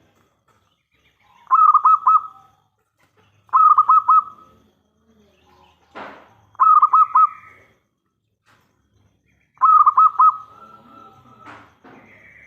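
Zebra dove (perkutut) cooing loudly: four phrases, each a quick run of rippling notes, the last one drawn out into a longer held note.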